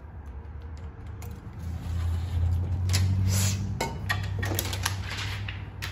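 Thin plastic window tint film crackling and rustling as it is handled and pressed against glass, with a flurry of small crinkles from about a second and a half in, over a steady low hum.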